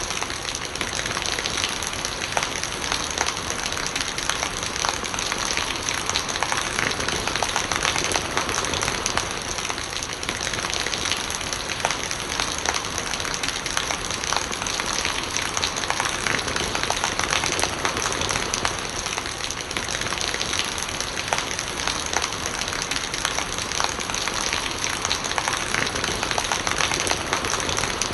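Steady rain falling, a dense patter of many fine drops hitting surfaces, with no let-up.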